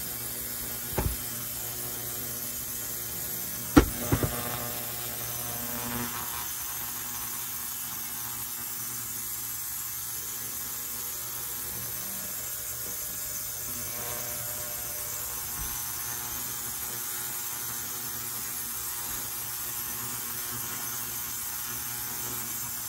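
Steady low hum with a few sharp knocks, like metal parts or tools being set down or tapped on a workbench; the loudest knock comes about four seconds in, followed closely by two smaller ones.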